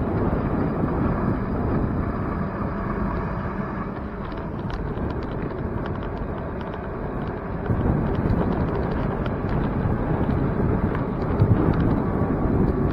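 Wind rumbling over a bicycle-mounted camera's microphone while riding along a city street. From about halfway through, light clicks and rattles from the bike come through the rumble.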